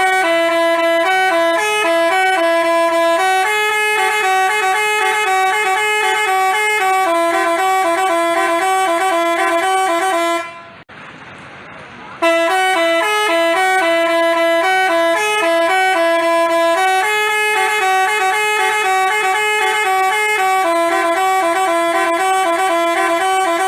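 Basuri telolet multi-trumpet bus horn playing its tune of quick stepped notes. The tune stops about ten seconds in, and after a short pause the same tune plays again.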